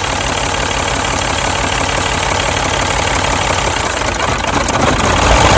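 A Mini's turbocharged four-cylinder petrol engine idling with a misfire from a faulty ignition coil, now fitted on cylinder 1. It gets a little louder near the end.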